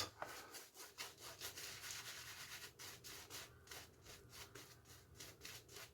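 Faint, quick rubbing and scraping strokes of a wet shave on the face, several a second and uneven.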